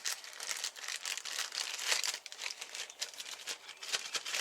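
Packaging crinkling and rustling with quick irregular crackles as it is handled and unwrapped.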